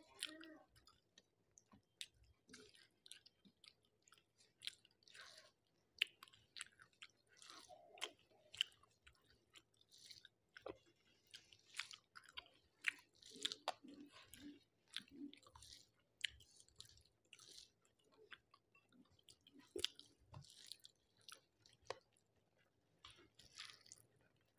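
A person chewing mouthfuls of rice and curry, quiet and close, with many short, irregular wet mouth clicks.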